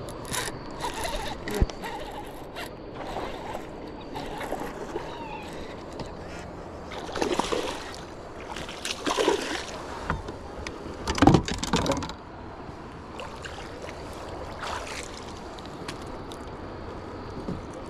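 Water splashing and sloshing around a kayak, with a few louder splashes in the second half and a single sharp knock about a second and a half in.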